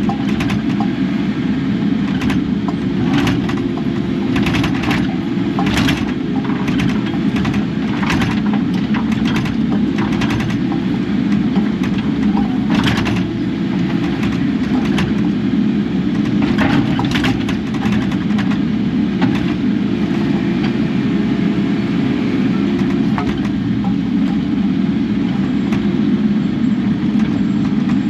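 Kubota KX080 excavator's diesel engine running steadily, with repeated sharp knocks and clanks over it, most of them in the first two thirds.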